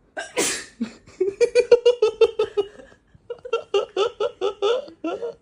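A woman sneezes once, a short noisy burst, then breaks into two runs of quick, high giggling laughter.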